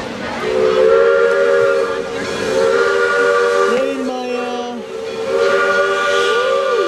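Steam locomotive whistle sounding three long blasts, each a steady chord of several tones, as the train approaches.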